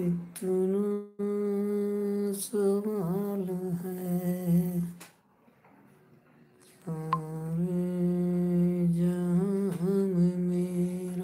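A man humming a slow wordless tune in long held notes with brief wavering turns, in two phrases with a pause of about two seconds between them.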